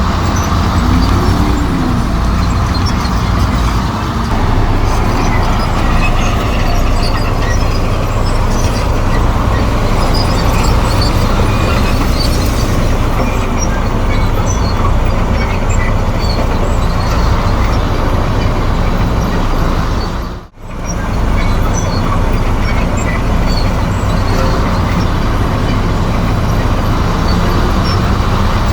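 Komatsu D58E crawler bulldozer's diesel engine running steadily under load as it pushes soil. The sound drops out for a moment about twenty seconds in.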